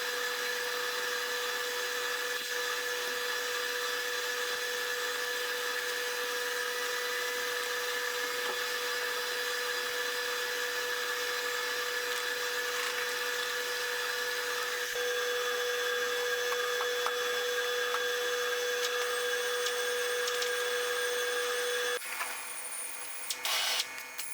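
Steady machine whine at a constant pitch that cuts off sharply about 22 seconds in, followed by a few clatters.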